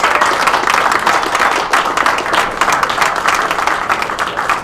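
A small crowd applauding: many hands clapping in a dense, steady stream that eases slightly near the end.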